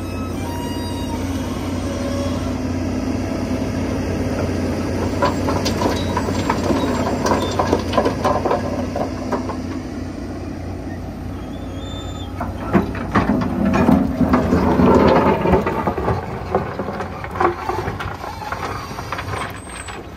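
Volvo EC210 excavator's diesel engine running steadily under load while it loads rock into the steel body of a Bell B20 articulated dump truck. Two spells of rocks clattering and scraping, the second and louder one a little past the middle.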